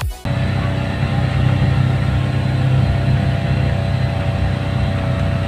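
Vehicle engine running steadily under way, heard from inside the vehicle as a constant low hum.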